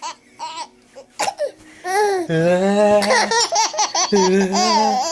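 A small child laughing in bursts. Twice, a lower voice holds a long, steady note under the laughter: once about two seconds in and again near the end.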